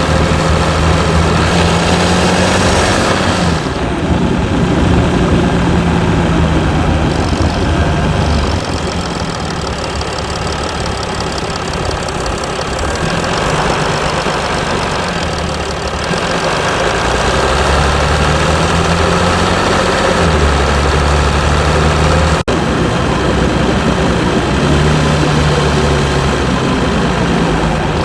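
Mercedes E320 CDI V6 diesel engine running, its pitch rising and then dropping back several times.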